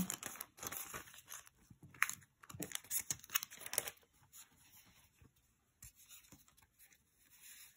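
Thin plastic packaging sleeve around a sticker kit being pulled and torn open, crinkling in short scattered bursts for about four seconds before it goes quiet.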